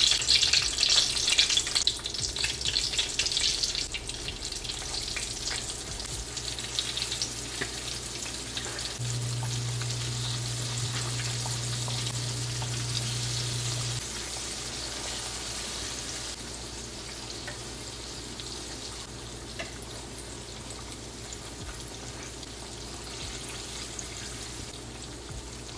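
Coated chicken pieces being laid into hot oil in a frying pan, sizzling and crackling; the sizzle is loudest at first and dies down over the following seconds. A low steady hum sounds for about five seconds midway.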